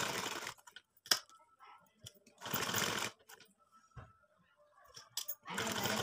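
Sewing machine stitching in three short runs of about a second each, with pauses between, and a single sharp click after the first run.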